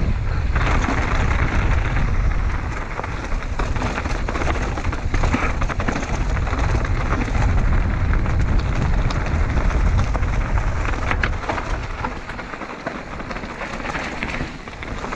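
Mountain bike riding fast down a rocky trail: tyres crunching and clattering over stones and loose rock, with wind rumbling on the microphone. The rumble eases somewhat near the end.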